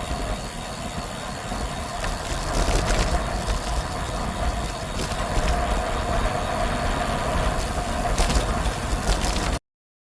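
Riding noise from a moving bicycle: wind buffeting the microphone with tyre and road noise, a steady hum and a few brief rattles. It cuts off suddenly near the end.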